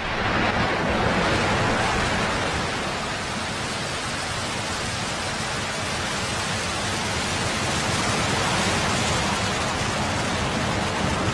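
Falcon 9 first stage's nine Merlin 1D engines firing at ignition and liftoff: a loud, dense rush of rocket noise that comes on suddenly and holds steady as the rocket climbs.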